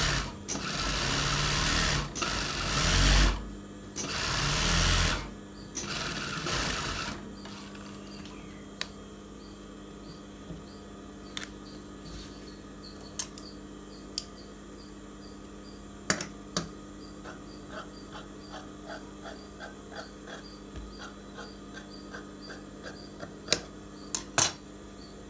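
Industrial lockstitch sewing machine stitching fabric in four short runs over the first seven seconds. After that there is a steady low hum with scattered sharp clicks and taps.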